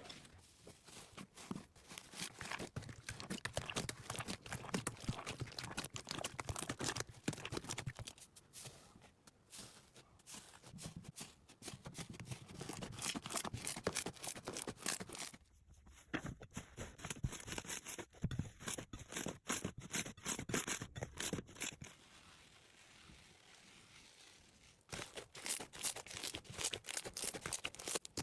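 Slime being squeezed and stretched by hand, giving dense runs of crackling, popping clicks that ease off briefly about three-quarters of the way through.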